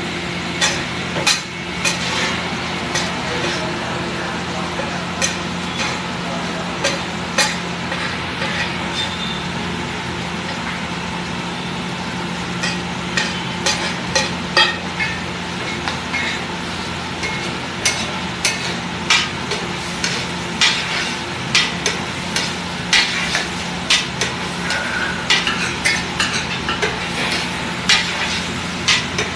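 Butter and chopped vegetables sizzling on a large iron tawa while a metal spatula and a flat masher scrape and strike the griddle in sharp, irregular clacks. A steady low hum runs underneath.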